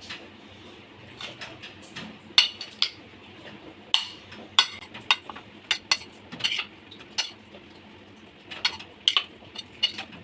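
A spoon stirring boiled sweet corn kernels in a bowl, clinking against the bowl at irregular intervals, about a dozen sharp clinks in all.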